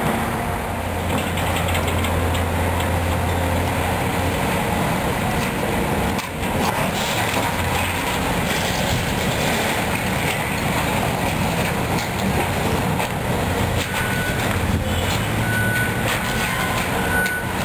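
Heavy demolition machinery working on a building, its engine running with a steady low drone under a constant noisy clatter. A backup alarm starts beeping near the end.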